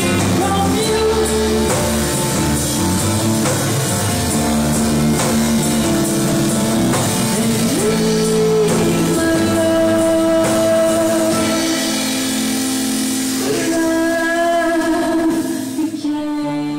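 Live band playing: plucked upright double bass walking through changing low notes, drums and acoustic guitar, with a woman singing long held notes into a microphone. The sound thins out near the end.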